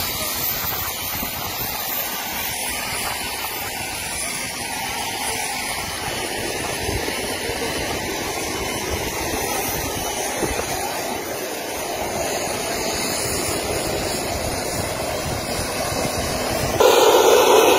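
Steady rushing hiss of aircraft turbine engines running, with a faint high whine, jumping abruptly louder about a second before the end.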